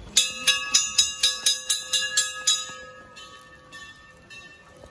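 Hanging brass temple bells rung in quick succession, about four strikes a second for some two and a half seconds, their ringing then dying away; a few fainter strikes follow near the end.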